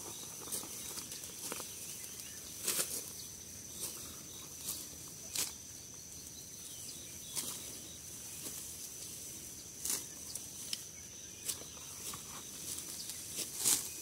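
Rice being harvested by hand: dry stalks rustling and snapping as handfuls are grabbed and cut, in irregular crisp strokes about a second or two apart, with steps through the straw.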